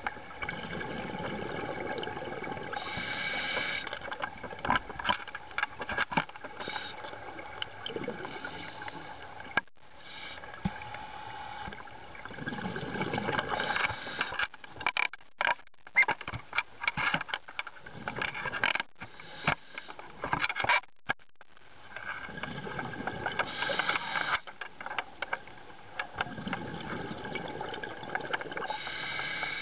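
Scuba diver breathing on a regulator, heard underwater: the diver's exhaled bubbles come out in a rush several times, over a steady faint hum, with many sharp clicks and knocks.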